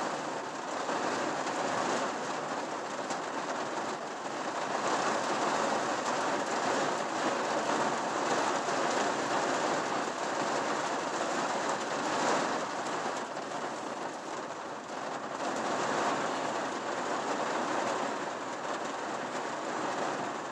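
Heavy rain pouring onto a pickup truck's roof and windshield, heard from inside the cab. It is a steady rush that swells and eases in slow waves as the wind gusts.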